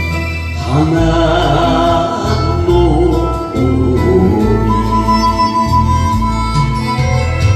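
A man singing a Japanese enka song into a microphone over a karaoke backing track.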